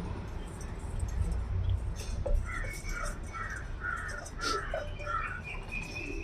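A bird calling about six times in quick succession, over a low steady rumble.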